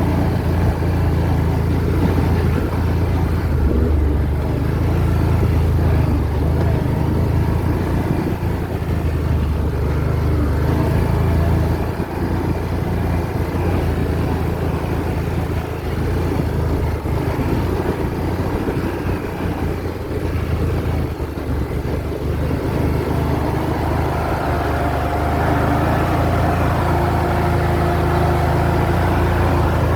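ATV engine running steadily while riding, a continuous low drone with small rises and falls in level. A thin steady tone joins in over the last few seconds.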